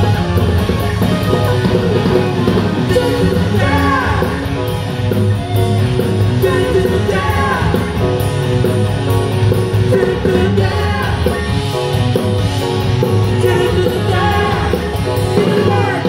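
Live rock band playing, with a voice singing over electric guitars, bass, keyboards and drums.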